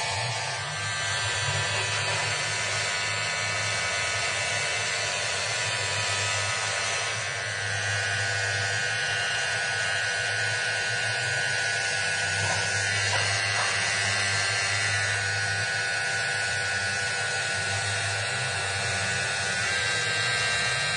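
Electric angle grinder running steadily with a grey abrasive wheel pressed against a turning chrome hydraulic cylinder rod: an even motor whine with a low hum underneath.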